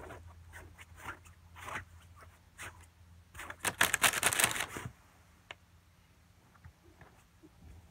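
Plastic cereal-box liner bag crinkling, with soft scattered rustles at first and a loud burst of crinkling for about a second and a half near the middle.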